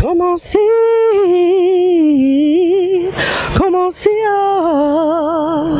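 A woman singing solo without accompaniment: long held notes with a wavering vibrato, broken by quick breaths between phrases.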